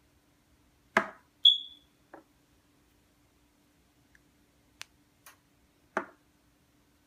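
Metal BB-revolver cartridge shells being loaded with BBs and set down on a table: a knock about a second in, then a short high metallic ping, a few light clicks, and another knock about six seconds in as a shell is placed on the tabletop.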